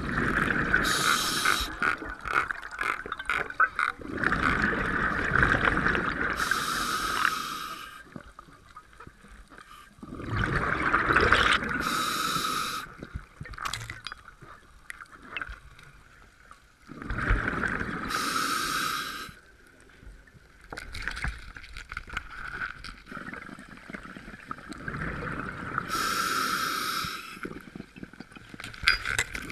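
Scuba diver breathing through a regulator underwater: a hiss on each inhale and a rush of exhaust bubbles on each exhale, the cycle repeating every six to eight seconds.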